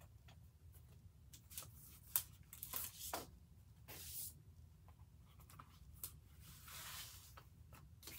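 Faint rustling of paper and plastic sleeves as planner pieces are handled and moved across a tabletop, with a few light clicks and taps. There is one sharp click about two seconds in and a longer rustle near the end.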